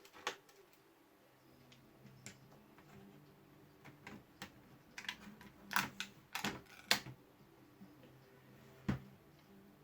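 Scattered clicks and knocks of plastic laptop parts being handled during disassembly, clustered and loudest about six to seven seconds in, with a duller knock near nine seconds.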